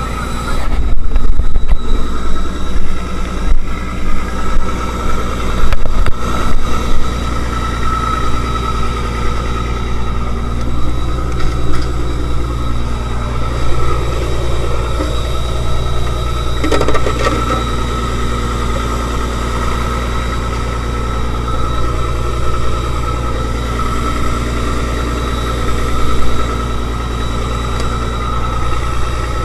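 A fishing boat's engine running steadily, a constant hum with a fixed high tone over it. Sharp knocks and clatter sound over it in the first several seconds.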